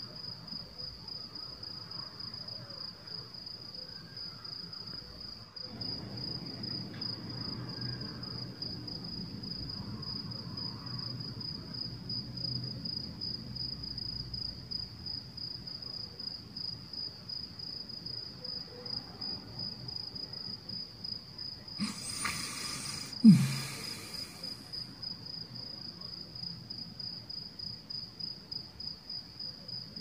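Crickets chirping in a steady, rapidly pulsing high trill. About three quarters of the way through, a brief louder noise cuts in and ends with a short low tone that falls in pitch.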